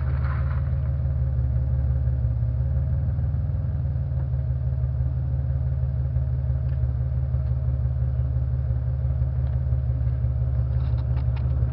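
Pontiac engine idling steadily through a stainless-steel exhaust, a low, even hum with no revving.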